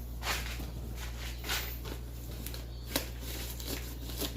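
Paintbrushes brushing and dabbing paint onto a papier-mâché volcano: soft scratchy strokes with a few light taps, the sharpest about three seconds in, over a steady low hum.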